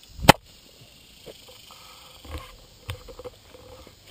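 Croquet mallet striking a croquet ball once: a single sharp crack about a quarter second in, a croquet shot with the red ball touching the black one. Faint rustling and a few soft knocks follow.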